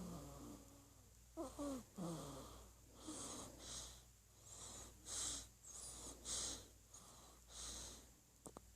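One-month-old baby snoring: faint, quick, wheezy breaths through the nose, about two a second, after a couple of short squeaky grunts in the first two seconds.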